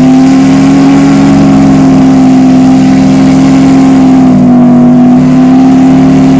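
Steam whistle blowing one long, loud, steady blast, a chord of several notes sounding together at an unchanging pitch.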